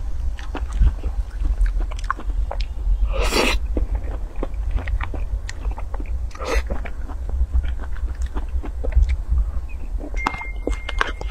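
Close-miked eating sounds from a soft cream sponge cake taken with a spoon: wet chewing and lip smacks with many small mouth clicks. Two longer, louder smacks come about three and six and a half seconds in, over a steady low hum.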